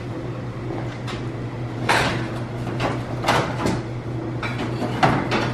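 Items being moved around on a cluttered metal shelf while cardboard sheets are pulled out: a few separate knocks and rustles, the loudest near the end, over a steady low hum.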